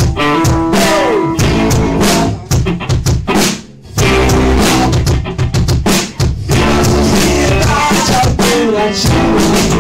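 Rock band playing an instrumental passage, with the drum kit's bass drum and snare to the fore under sustained guitar and bass notes. The music briefly drops away a little past three seconds in, then the full band comes back in.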